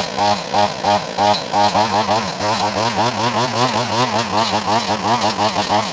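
Wild Badger 4-in-1 multitool running, its motor pitch swinging up and down repeatedly in quick pulses as the attachment, now correctly fitted, runs without vibration.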